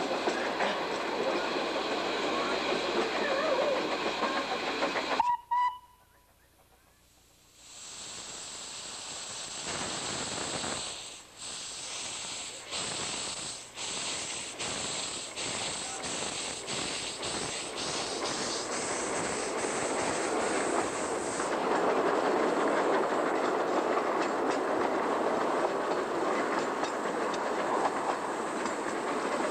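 Small-scale live steam locomotive with a steady hiss of steam. About five seconds in there is a short whistle toot, then the sound drops out for a couple of seconds. The engine then works with slow, even exhaust chuffs under the steam hiss, about one and a half a second, before settling into a steady running noise.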